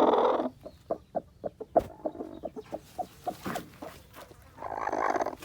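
Chickens clucking: a quick run of short clucks, with a longer, louder call near the end.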